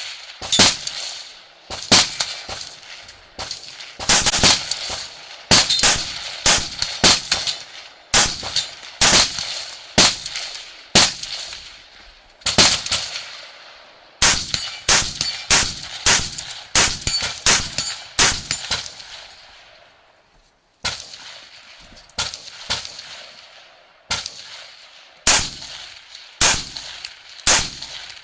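Rifle shots fired in quick strings, about one to three a second, each echoing briefly, with short breaks between strings and a longer pause about twenty seconds in.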